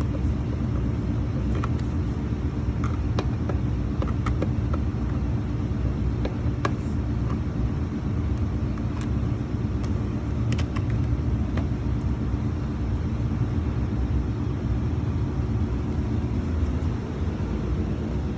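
A steady low rumble with a hum runs throughout, with scattered light clicks and taps from a screwdriver working screws loose on a floor scrubber's housing.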